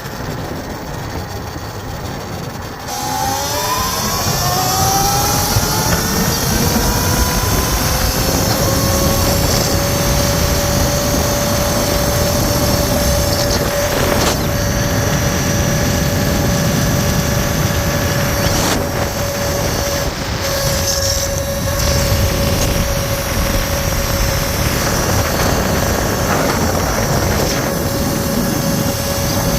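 Talaria XXX electric dirt bike's motor whining, its pitch rising about three seconds in as it speeds up, then holding steady over a low rumbling noise.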